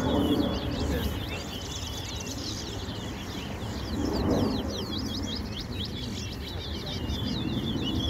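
A caged towa-towa (chestnut-bellied seed finch) sings a rapid, unbroken song of quick high chirps and sweeps, the song counted in a bird-singing race.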